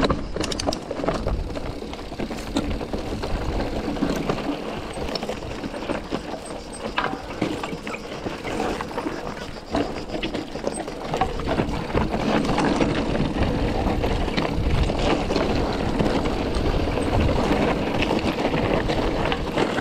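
Mountain bike riding down a rough descent: a continuous rumble of tyres over the ground with many small knocks and rattles from the bike, growing louder and steadier about twelve seconds in.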